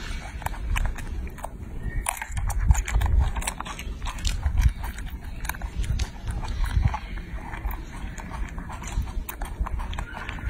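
A baby macaque chewing grapes with its mouth full: irregular wet smacking and clicking, a few clicks a second, over a low rumble.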